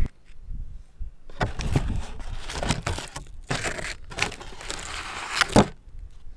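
Cardboard takeaway food tray crinkling and rustling as it is handled close to the microphone, in four bursts, with a sharp knock near the end.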